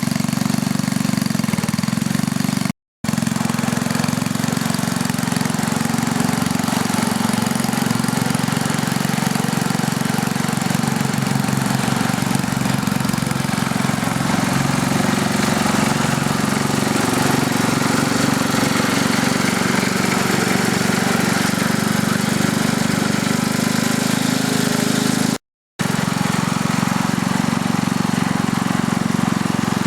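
Small engine of a restored 1950s Bantam tractor running steadily. The sound drops out briefly twice, about 3 seconds in and again near the end.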